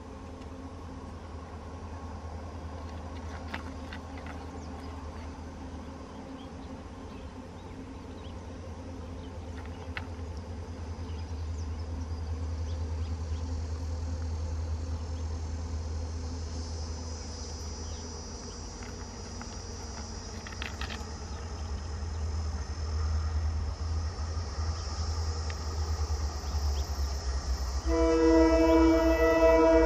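Twin EMD WDG-4 diesel locomotives hauling a freight train approach with a low engine rumble that slowly grows louder. About two seconds before the end the lead locomotive sounds its multi-tone horn, a loud steady chord that is the loudest sound.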